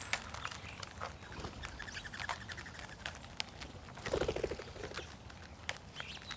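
Birds feeding on the ground: scattered sharp taps and clicks with short high chirps, a rapid trill about two seconds in, and a low rapid pulsing sound about four seconds in.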